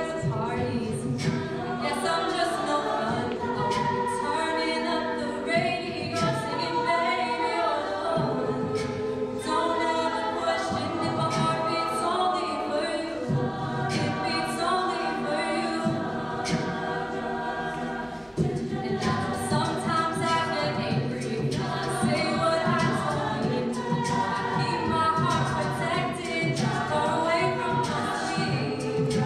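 A cappella group singing: a female lead voice over sung backing harmonies, with a steady beat of sharp clicks.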